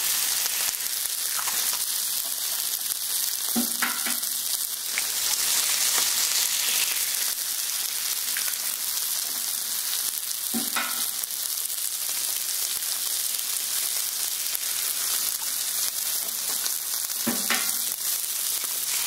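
Eggs frying on a hot, oiled steel flat-top griddle: a steady sizzle. Three sharp knocks with a short ring, about seven seconds apart, come as fresh eggs are cracked against the griddle's steel edge and dropped onto the hot surface.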